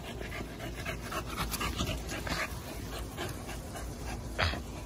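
A dog panting in quick, even breaths. A brief sharp noise cuts in about four and a half seconds in.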